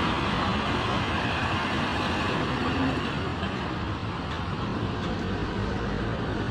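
Steady road traffic noise: an even hiss with a low rumble underneath and no distinct events.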